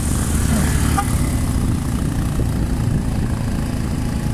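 Motorcycle being ridden at a steady speed, its engine running under a steady low rumble of wind and road noise.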